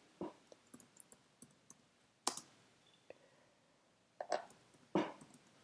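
Computer keyboard keystrokes: soft, irregular taps with a few louder key presses as a line of code is typed.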